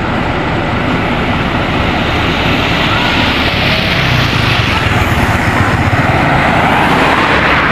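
Large tour bus driving past close by: steady, loud engine and tyre noise.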